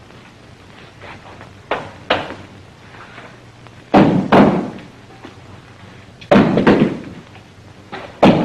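A series of heavy thuds and knocks, each with a short ringing tail. Two lighter ones come about two seconds in, louder pairs follow about four and six and a half seconds in, and another comes near the end.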